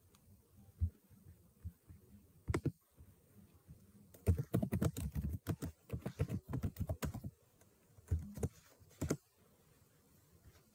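Typing on a computer keyboard: a couple of single keystrokes, then a quick run of key clicks a few seconds in, and a few more keystrokes near the end.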